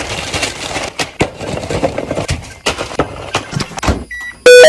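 Rapid, dense clattering and knocking, then near the end a sudden, very loud blaring tone made of several pitches.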